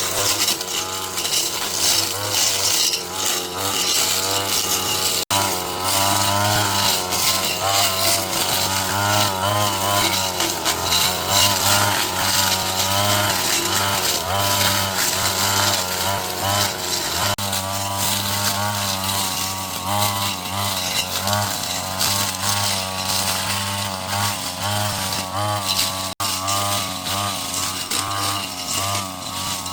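Small two-stroke engine of a handheld power tool running hard, its pitch wavering up and down as it works under load. The sound breaks off for an instant twice.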